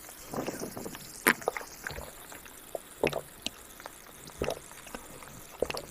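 A person gulping a drink from a can: several separate swallows about a second apart, with a sharp click among them.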